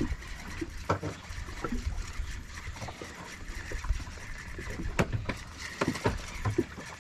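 Sea water lapping against a small boat's hull under a steady low wind rumble, with scattered sharp knocks and clicks, the loudest about five and six seconds in.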